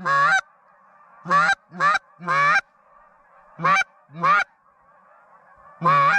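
Loud, nasal, goose-like honks in an irregular series, about seven short notes with a gap of over a second before the last.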